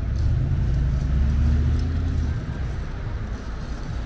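City road traffic, with a motor vehicle's engine passing close by: a low hum, loudest in the first two seconds, then fading into the general traffic noise.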